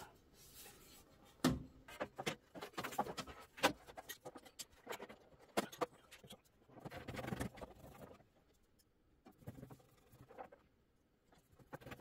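Plastic printer cover being handled and fitted back into place: scattered clicks, knocks and scraping of plastic parts, with a louder knock about a second and a half in.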